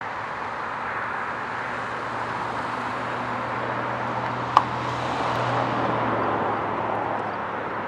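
Freight train passing at a distance, with two BNSF diesel locomotives in it: a steady low engine drone over the rumble of rolling cars, growing a little louder past the middle as the locomotives come by. A brief sharp click sounds about four and a half seconds in.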